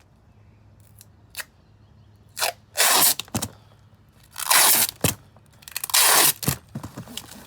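Packing tape being pulled off the roll and pressed onto a cardboard box, in four loud, rasping rips of about half a second each, after a few faint clicks.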